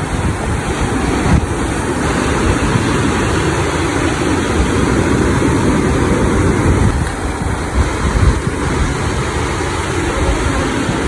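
Sea surf breaking and washing up a sandy beach, under steady wind rumbling on the microphone.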